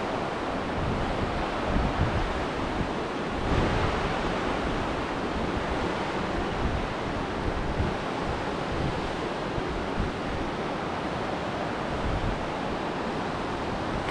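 Wind buffeting the microphone: a steady rushing noise with uneven low thumps and a few small swells.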